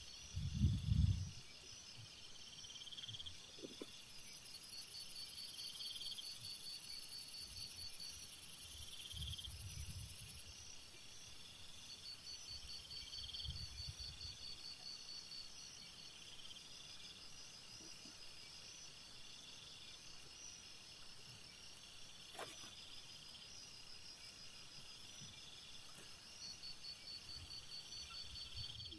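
Night insects chirping in trains of rapid high-pitched pulses, with a higher, steady insect buzz from about 4 to 10 seconds in. A few low thumps, the loudest about a second in.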